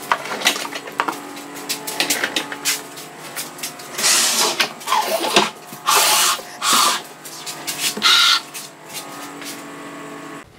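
Handling noises from a chipboard cabinet: a run of clicks and knocks as clamps are undone and pulled off, then several scraping pushes as the cabinet is slid and turned on its legs across a wooden worktable.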